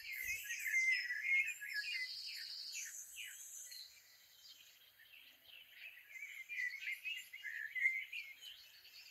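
Birds chirping and warbling in a background nature recording, many quick chirps overlapping; the singing is busiest in the first few seconds and again a little past the middle.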